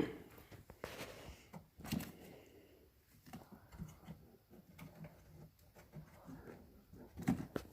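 Scattered light clicks and knocks from handling parts of a pickup's door latch and handle mechanism, the clearest about two seconds in and a few more near the end.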